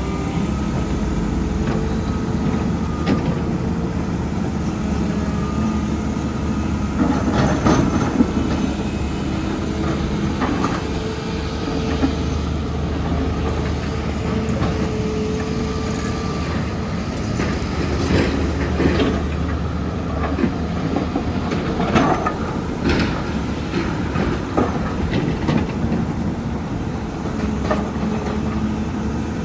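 Hydraulic excavator at work: its diesel engine runs steadily under a hydraulic whine that rises and fades as it works, with several sharp metallic clanks from the bucket and tracks scattered through.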